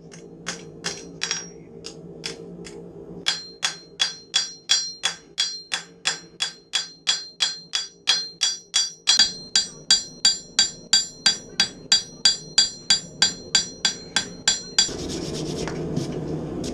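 Hand hammer striking hot knife steel on an anvil, each blow ringing. A few lighter, scattered blows come first, then about three seconds in a steady run of about three blows a second sets in. Near the end the hammering stops and a steady rushing noise takes over.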